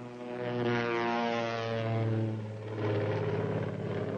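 Propeller engines of a twin-engine light plane droning steadily at take-off and climb power, the drone dipping and shifting pitch partway through.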